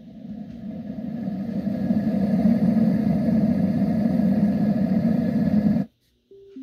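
Letsfit sleep sound machine's speaker playing a steady noise track heavy in the bass, growing louder over the first two seconds as the volume is turned up, then cutting off suddenly near the end, followed by a short beep.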